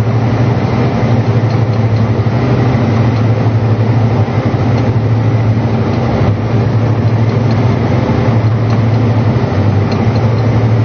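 John Deere 8295R tractor's six-cylinder diesel running steadily under load as it pulls a peanut digger through the field, with a strong, even low hum.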